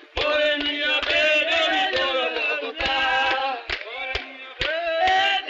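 A song with a male voice singing a chant-like melody, held notes gliding between pitches, with short pauses between phrases.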